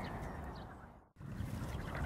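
Steady outdoor noise that fades out to silence about a second in, at a cut between two clips, and quickly fades back in.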